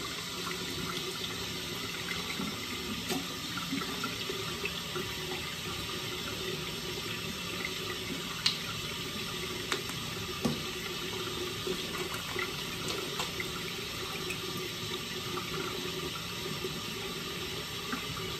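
Bathroom sink tap running steadily into the basin during face washing, with a few short sharp sounds about halfway through.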